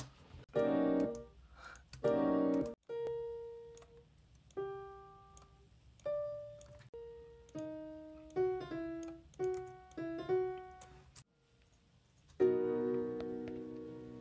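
Piano notes from a software instrument: two short chords, then single notes one after another, each dying away, picking out a melody. After a brief pause about eleven seconds in, fuller chords play.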